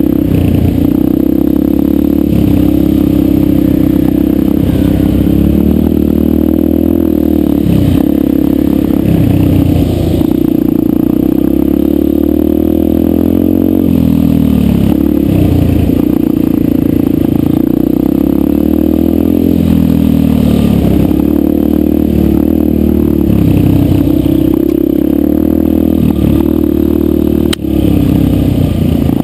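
A Yamaha 125 dirt bike's engine running under a trail rider's throttle. Its pitch repeatedly dips and climbs back as the throttle is eased off and opened again. A single sharp click comes near the end.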